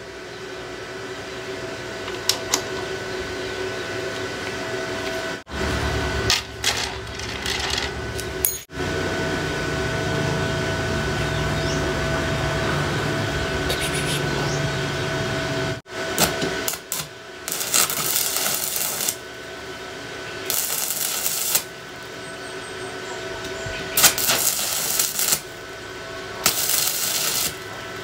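Stick (MMA) welding arc crackling and sputtering in four bursts of a second or two each in the second half, from an inverter welder running on rusty steel sprockets. Before that come metallic clinks and handling noise, over a faint steady hum.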